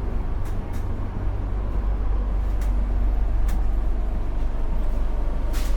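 Madiun Jaya passenger train running: a steady low rumble with a few faint clicks.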